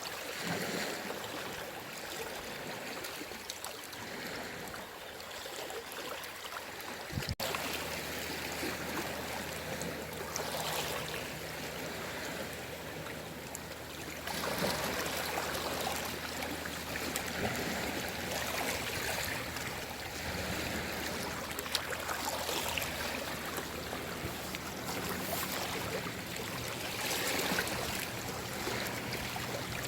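Gentle sea waves washing onto the shore: a steady wash of water that swells every few seconds as each wave breaks.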